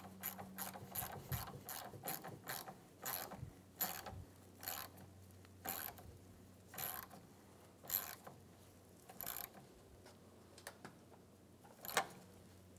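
Small hand ratchet clicking as the nut on the negative battery terminal clamp is snugged down: quick clicks at first, then slower single clicks spaced about a second apart, with one louder click near the end.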